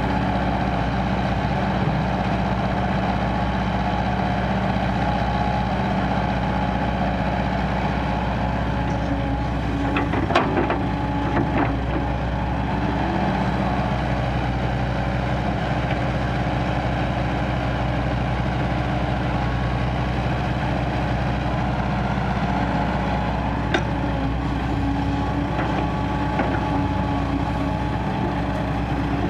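KOBELCO crawler excavator's diesel engine running steadily as it digs and loads soil into a dump truck, with a few short knocks about ten seconds in and again a little after twenty seconds.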